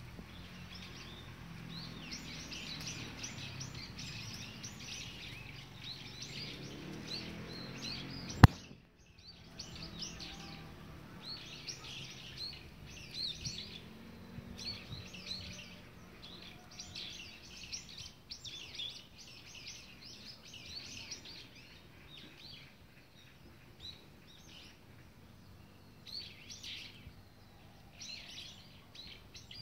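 A chorus of small birds chirping and twittering continuously in woodland. A single sharp click about eight seconds in is the loudest sound, and a low steady rumble lies under the first eight seconds.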